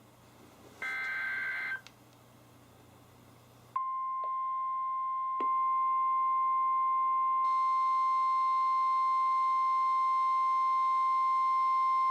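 NOAA Weather Radio EAS alert: the last one-second burst of the SAME digital header, a warbling two-tone data screech. About two seconds later the steady 1050 Hz weather-radio alarm tone begins, and further steady alarm tones from other weather radios join in about a second and a half later and again near the middle.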